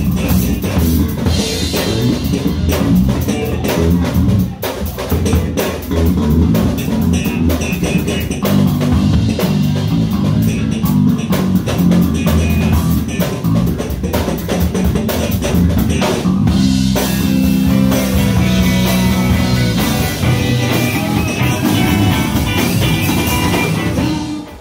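Live band playing, with electric bass and drum kit keeping a steady beat. The music drops away abruptly just before the end.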